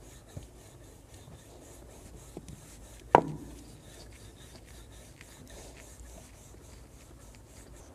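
A wooden rolling pin rolls back and forth over dough on a wooden board, a faint rubbing, with a few small clicks. There is one sharp, loud knock about three seconds in.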